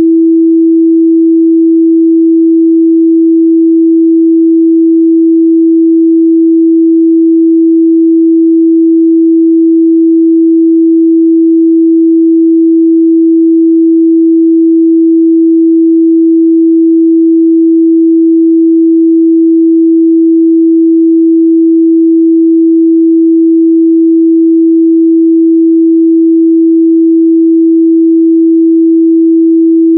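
A steady, loud 328 Hz sine-wave test tone, one pure pitch held without change.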